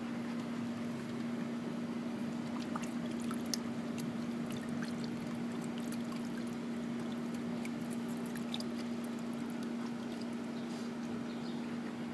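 A Doberman dipping his muzzle into a bucket of water, splashing and dribbling as he tries to bite floating water balloons, with many small scattered ticks of water. A steady hum runs underneath throughout.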